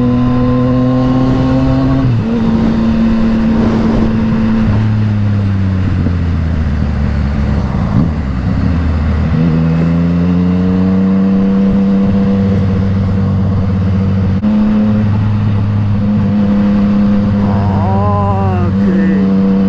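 Yamaha MT-09's inline three-cylinder engine running under way through an Akrapovič exhaust. The revs drop about two seconds in, sag lower for several seconds, then climb back at around ten seconds and hold steady.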